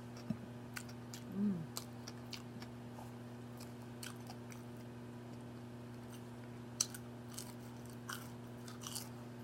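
A person chewing food close to the microphone, with scattered wet mouth clicks and smacks and a brief vocal sound about a second and a half in. A steady low hum sits underneath.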